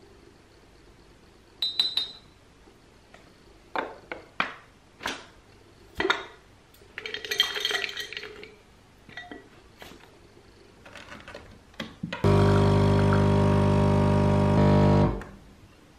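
Dishes and small objects clinking and knocking a few times, then a small electric appliance buzzing steadily and loudly for about three seconds before cutting off.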